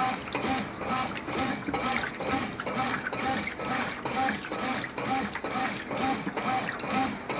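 Brastemp BWQ24A top-load washing machine agitating in the wash stage: water and clothes sloshing in the tub with a churning rhythm that repeats about twice a second.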